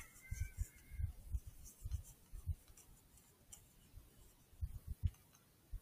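Irregular low thumps and faint scratching noise on the microphone; a faint high-pitched call trails off in the first second.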